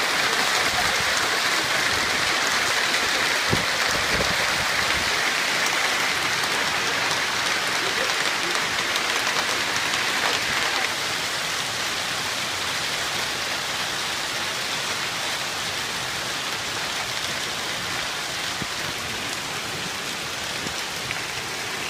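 Hailstorm: hail and heavy rain pelting the ground and parked cars, a dense steady hiss of countless impacts. It gets a little quieter about eleven seconds in.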